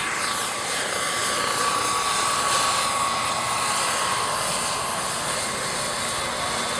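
Radio-controlled scale model helicopter flying low and hovering: engine and rotor noise with a steady high whine that dips slightly in pitch partway through.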